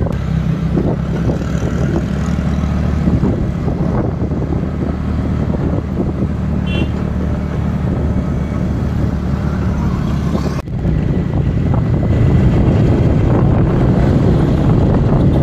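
Motor scooter running steadily on the road, its engine hum under wind and road noise. The sound drops out briefly about two-thirds of the way through, then carries on a little louder.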